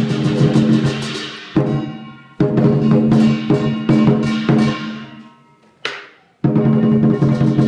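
Lion dance percussion of drum, cymbals and gong playing rapid beats, stopping twice and letting the crash ring out before starting again.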